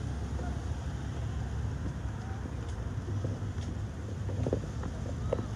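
Steady low rumble of wind on a phone microphone mixed with parking-lot traffic noise, with a few faint voices near the end.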